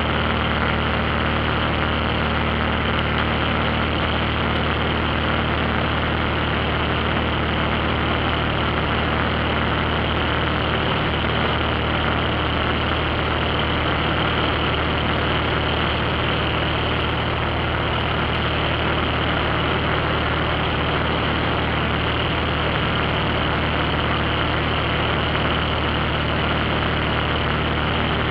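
Light high-wing airplane's engine running steadily in level flight, heard from inside the cabin as an even drone with a constant hiss over it.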